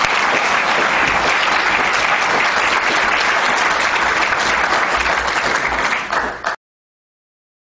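Audience applauding, a dense, steady clapping that cuts off suddenly about six and a half seconds in.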